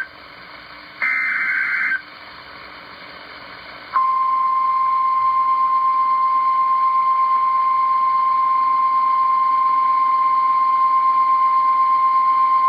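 Emergency alert broadcast over radio: a one-second warbling burst of the SAME digital data header about a second in, then faint hiss, then from about four seconds in the long steady single-pitch alert tone (the 1050 Hz NOAA Weather Radio warning tone) that announces a warning.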